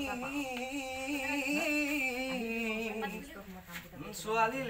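A single voice singing a Bihu dance tune without instruments, holding long notes with a wavering pitch.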